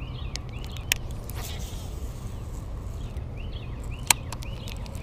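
Outdoor pond-bank ambience: a steady low rumble with faint bird chirps, broken by two sharp clicks, about a second in and again near the end.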